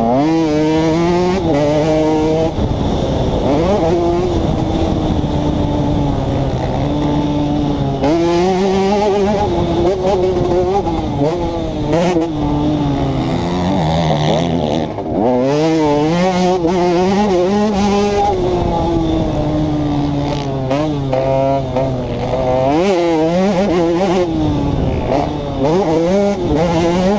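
2011 KTM 150 XC's two-stroke engine being ridden hard, its pitch climbing and dropping over and over as the throttle opens and closes and the gears change.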